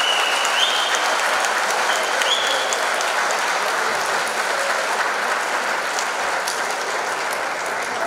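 Large indoor crowd applauding and cheering a knockout, with two short high whistles in the first three seconds.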